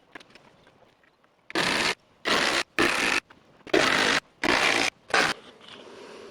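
Six rasping scraping strokes, each about half a second long and spaced unevenly, about one every two-thirds of a second.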